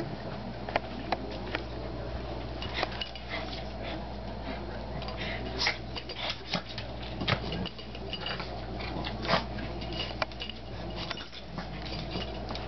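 Two small dogs play-wrestling: repeated short scuffles and clicks of paws and claws on the wooden floor and dog beds, with brief dog noises among them.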